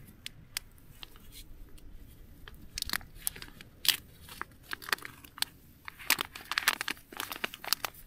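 Packaging of a coffee brew pouch crinkling and being torn open by hand. The crackles come sporadically and crowd together in the last two seconds.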